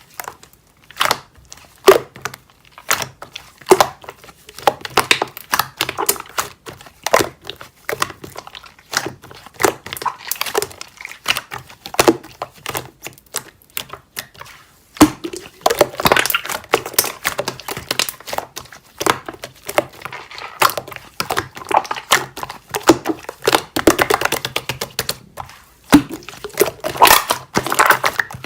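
Slime being squished and stretched by hand, a dense run of sticky clicks and crackling pops that gets busier and louder about halfway through.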